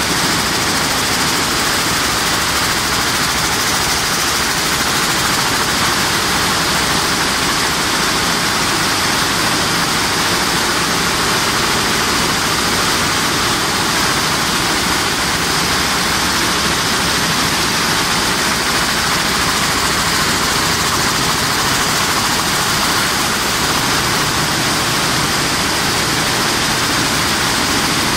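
Rows of Toyota air-jet weaving looms running at full speed: a loud, steady mechanical din with a strong hiss, unbroken throughout.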